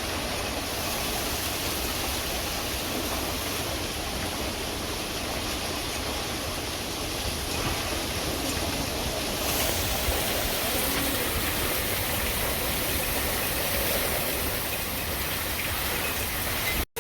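Steady rushing noise of heavy hurricane rain and wind, with no break or pattern.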